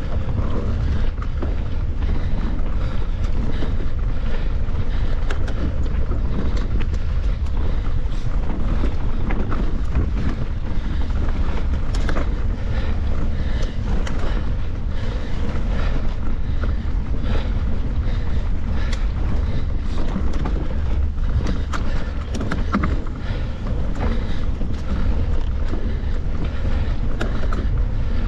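Wind rumbling over the microphone of a camera carried on a mountain bike riding a trail, with frequent small clicks and rattles as the bike goes over bumps.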